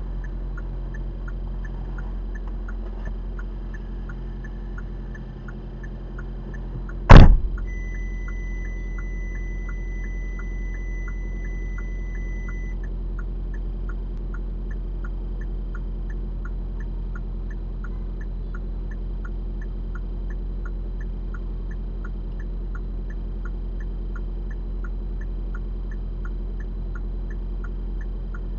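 Inside a stopped car with a steady low hum, the hazard-light or turn-signal relay clicks evenly, about two to three clicks a second. About seven seconds in, a car door slams shut, very loud. A single steady electronic warning tone follows for about five seconds.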